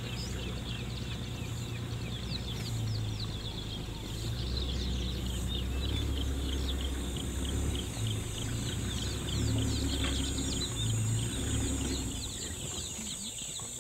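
Many birds chirping in quick, short, downward-slurred notes, several a second. Beneath them runs the steady low hum of an idling vehicle engine.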